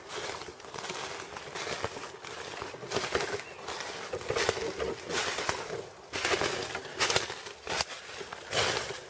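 Footsteps and rustling of a person walking through forest undergrowth, in irregular bursts that get louder after the first few seconds.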